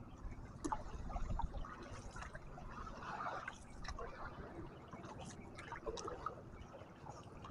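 A wooden paddle dipping and pulling through shallow sea water beside a small outrigger canoe: irregular splashing and dripping, with a few sharp clicks.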